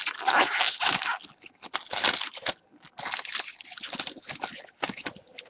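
Trading card pack wrapper being torn open and crinkled by hand, in irregular crackling bursts, densest at the start and again in the second half.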